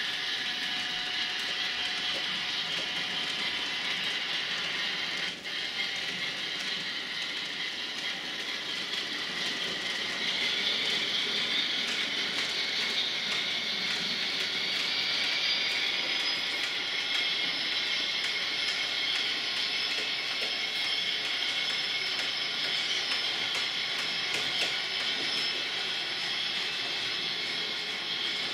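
Model WDG 4P diesel locomotive's sound decoder playing a running diesel engine through its small speaker, thin and steady, with nothing in the deep bass. It grows a little louder about ten seconds in.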